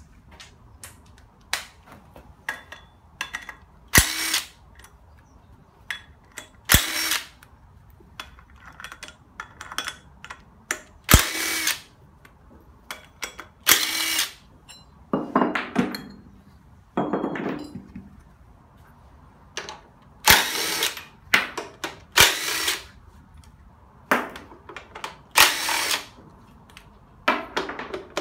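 DeWalt cordless drill spinning out engine bolts in short runs of under a second, about a dozen times, with small clicks and clinks between runs. The bolts are on the crankshaft pulley and the timing belt cover of a Hyundai Accent 1.5 DOHC 16-valve engine being stripped down.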